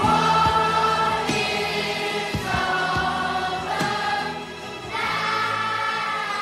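Background music: a choir singing long held notes that change about every second.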